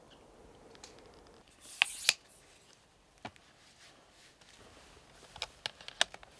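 Optics gear being handled: sharp clicks and a brief rustle as binoculars are worked on a tripod. A loud pair of clicks comes about two seconds in, and a quick run of lighter clicks near the end.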